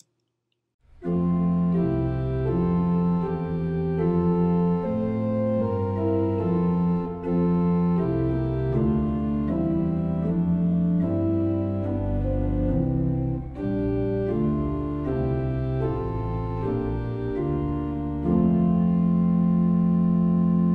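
Organ playing slow, sustained chords that begin about a second in and close on a long held final chord.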